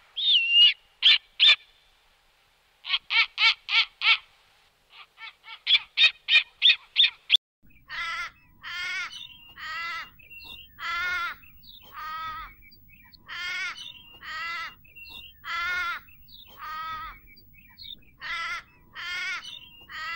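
Animal calls in two parts: first short bursts of rapid pulsed calls, about five a second, broken by pauses; then, from about eight seconds in, a harsh pitched call of about half a second, repeated roughly once a second.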